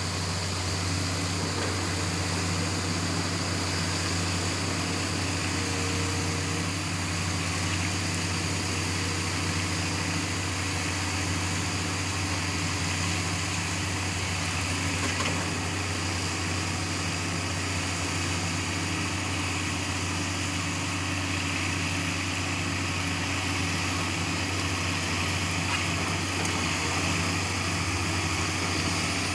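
Tamrock rock-drilling rig running steadily: a constant deep engine drone with a dense hiss over it, unchanged throughout.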